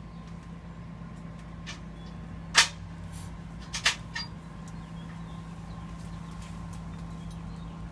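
A few sharp knocks and clicks, the loudest about two and a half seconds in and a quick pair just over a second later, over a steady low hum.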